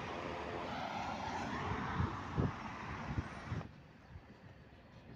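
Steady outdoor background rush with a few low bumps near the middle. It cuts off suddenly a little past halfway, leaving a much quieter outdoor background.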